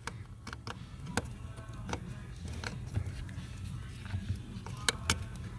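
Scattered small plastic clicks and handling noise as the wiring connector is plugged into a new accelerator pedal position sensor, with two sharp clicks near the end, over a low hum.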